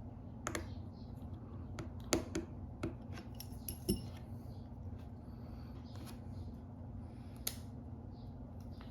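Small tools and parts of an iPhone 12 Pro Max being handled during the repair: scattered light clicks and taps, the sharpest about two seconds and four seconds in, over a steady low hum.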